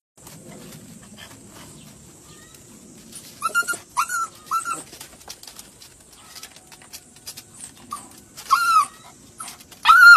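Puppy whining in short, high, arching cries as it tries to climb out of a pit: three in quick succession a few seconds in, then two more near the end.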